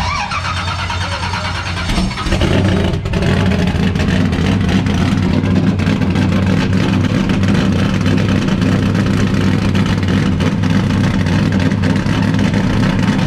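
Period-correct 18-degree small-block Chevy V8 race engine of a 1988 NASCAR Monte Carlo Aerocoupe, on race exhaust and race gas, running loud. It picks up with a short rise in revs about two seconds in, then holds steady.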